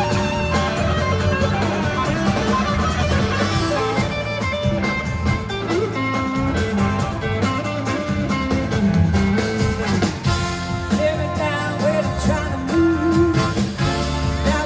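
Live blues-rock band playing: electric guitars over drums, with a lead guitar line of bending, gliding notes typical of slide guitar.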